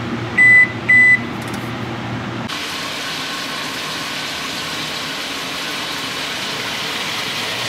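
Oven control beeping twice as the oven is set to preheat to 400 degrees, over a low hum. After about two and a half seconds the hum gives way to a steady sizzling hiss of beef cubes browning in oil in the pot.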